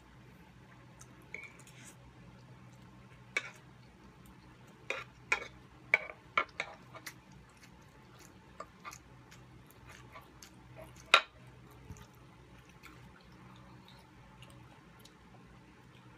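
Metal forks and spoons clicking and scraping on a wooden serving board while food is eaten: scattered sharp clicks, bunched together in the middle, with the loudest about eleven seconds in.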